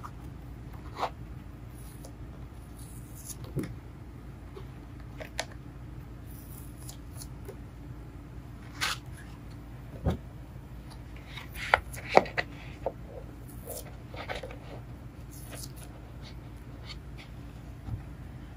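Cut vinyl stickers being peeled off a sticky cutting mat and set down: scattered soft crackles, ticks and taps, busiest a little after halfway, over a steady low hum.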